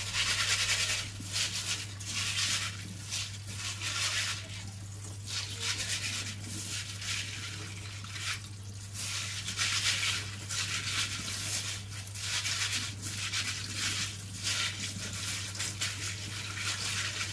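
Water running and splashing in a kitchen sink as hands swish and rub azuki beans to rinse them, the splashing surging and easing every second or two. A steady low hum runs underneath.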